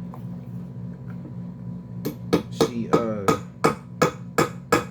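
A hard object striking something that rings, about three sharp hits a second, starting about two seconds in, some hits trailing a short falling ring. A steady low hum runs underneath.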